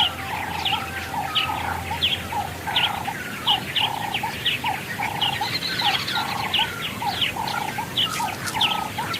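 Several wild birds calling at once: many quick, overlapping chirps and whistles over a lower call repeated at a steady pace, about twice a second.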